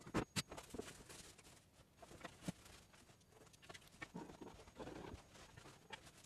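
A few quick sharp taps at the start, then only faint scattered knocks over quiet room tone.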